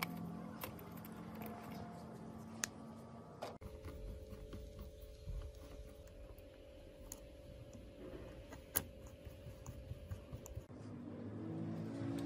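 Scattered light clicks and taps of small laptop parts being handled, over a faint steady hum that starts about three and a half seconds in and stops near the end.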